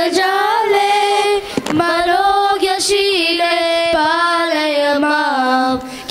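A girl singing a Sanskrit devotional hymn to the goddess Saraswati into a microphone, drawing out long held notes that waver and glide between pitches in Carnatic style.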